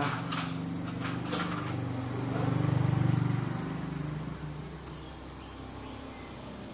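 A low engine hum swells to its loudest about three seconds in and fades away, like a vehicle passing by, after a few sharp clicks near the start.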